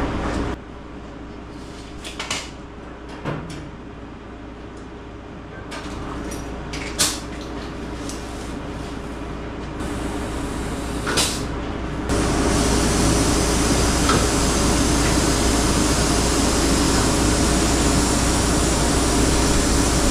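A few light knocks of tools and parts, then, from about twelve seconds in, the car's air-ride suspension airing up: a loud, steady hum with hiss as the air bags fill and lift the roadster to full height. It cuts off suddenly right at the end.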